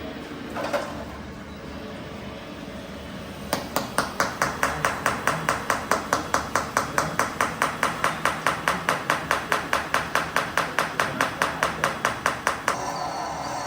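Rapid, evenly spaced mechanical hammering, about four to five blows a second. It starts about three and a half seconds in and stops abruptly near the end, over a steady low hum.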